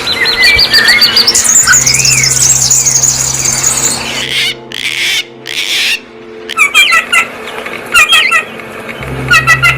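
Several songbirds chirping and calling: fast high trills, a few harsh squawk-like notes, then clusters of short repeated chirps. A low hum sits underneath at times.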